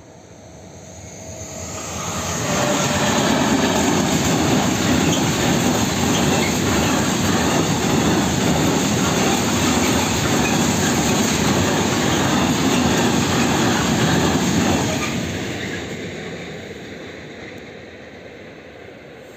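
A train passing over a level crossing at speed, with rumbling wheels on the rails. The noise swells over the first few seconds, holds steady for about twelve seconds, then fades away near the end.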